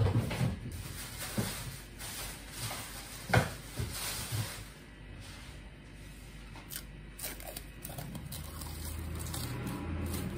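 Light knocks and handling noises from working around a steel mixing bowl of dough, the loudest knock about three and a half seconds in, with a low hum coming in near the end.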